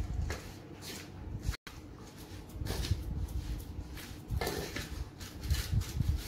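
Metal spoon stirring raw prawns in a spice and vinegar marinade in a stainless steel bowl, with irregular scrapes and clinks against the bowl.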